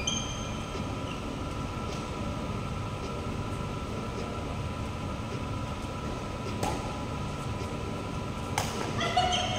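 Steady hum of a sports hall's ventilation, with two sharp cracks of a badminton racket hitting the shuttlecock in the last few seconds, the second louder, and a brief shoe squeak on the court floor right at the end.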